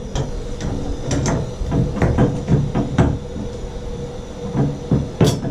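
Irregular knocks and clicks of tools and metal fittings being handled, about a dozen sharp strikes spread unevenly, over a low steady hum.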